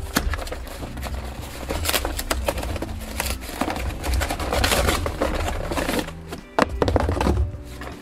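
A cardboard shipping box is torn open and rustled by hand, with a sharp crack near the end. Background music with a steady bass line plays underneath.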